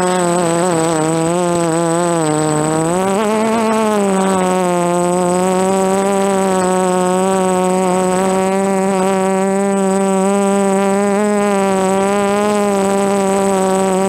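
DJI F330 quadcopter's electric motors and propellers whining in flight. The buzzing pitch wavers with throttle, climbs briefly about three seconds in, then holds steady.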